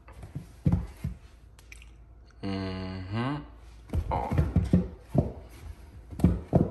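Handling noise as gloved hands shift and pick up a pair of leather sneakers on a wooden step: several knocks and rubbing sounds. About two and a half seconds in there is a low hum lasting about a second that bends up in pitch at the end.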